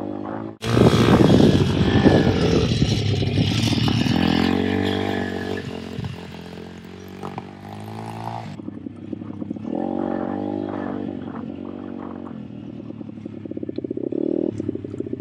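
Small four-stroke pit bike engine running and revving up and down as the bike is ridden. The sound breaks off abruptly twice, under a second in and at about eight and a half seconds, and the stretch between is the loudest and most rushing.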